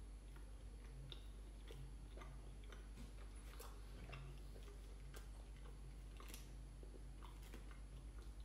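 Faint chewing and irregular soft mouth clicks from a man eating fried chicken, over a low steady hum.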